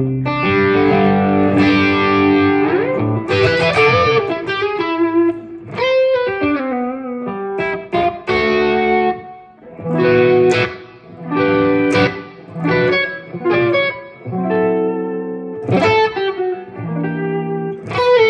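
Strat-style electric guitar played through a Headrush Prime amp modeller on a mid-gain, classic-rock 'brown sound' overdrive patch. A run of sustained notes with string bends over the first few seconds, then short chord stabs with brief gaps between them.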